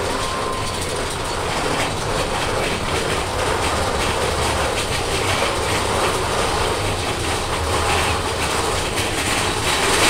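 Big Thunder Mountain Railroad mine-train roller coaster cars running along the track, a steady rumble and clatter heard from a seat on the ride.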